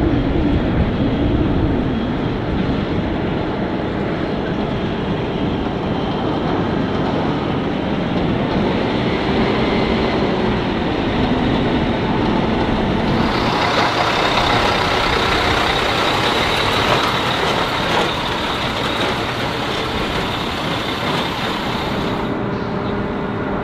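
Armored military trucks running and rolling past, with the engine pitch rising and falling. The sound changes abruptly to a brighter, hissier engine noise about halfway through, then changes again near the end.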